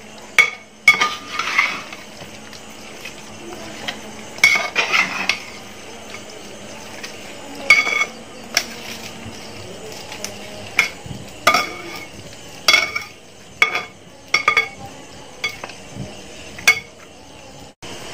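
A metal ladle stirring thick chicken masala in a large metal pot. It scrapes and knocks against the pot with sharp, ringing clinks every second or so, sometimes in quick clusters, while the dish sizzles faintly underneath.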